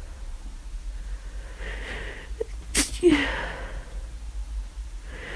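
A person with the flu sneezing: a breathy in-breath, then one sharp sneeze a little under three seconds in, ending in a short voiced 'ik'. Another in-breath starts near the end.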